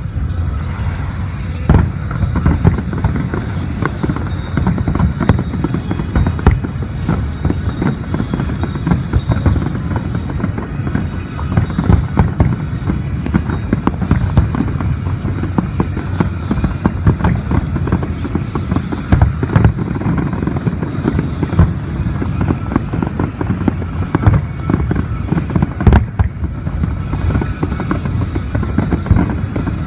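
Fireworks barrage: shells bursting in rapid, overlapping booms and crackles without a break, with music playing underneath.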